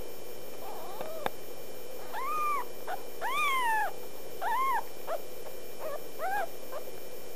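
Kitten mewing: a run of about half a dozen high, arched meows, the longest in the middle lasting over half a second, the later ones short. A single sharp click comes just before the meows, over a faint steady hum.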